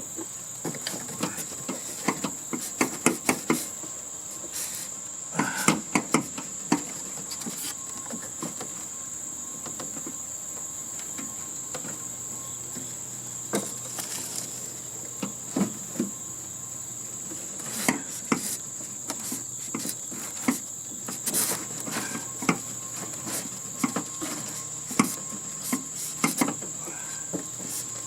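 Insects chirring steadily at a high pitch, with scattered clinks and knocks of hand tools on sheet metal and parts as a heating and air-conditioning unit is dismantled. The knocks come in clusters, thickest in the first few seconds and again in the last third.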